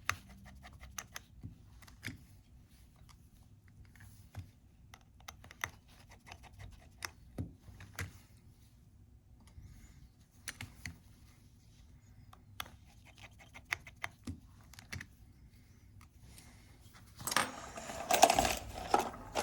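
Small, sharp clicks and ticks of a small screwdriver working tiny phone screws and of the screws being set down on a work mat, spaced irregularly. A louder burst of clattering handling noise comes near the end.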